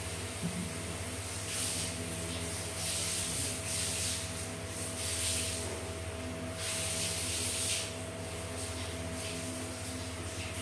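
A cat licking its fur while grooming: a run of irregular rasping tongue strokes that stops about eight seconds in, over a steady low hum.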